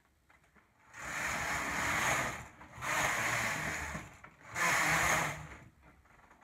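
Knitting machine being worked: three sweeps across the metal needle bed, each about a second and a half long with short gaps between.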